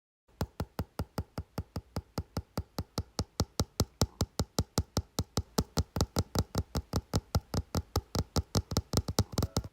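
A steady run of sharp clicks or taps, about five a second, growing a little louder as it goes.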